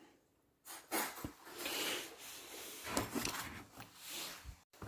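Rubbing and scraping with a few light clicks as an air pistol is handled and turned over.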